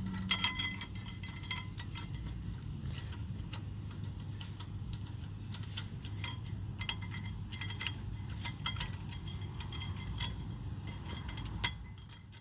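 Small metal brake-hardware clips being handled and snapped into a brake caliper bracket: scattered light metallic clicks and clinks, over a steady low hum.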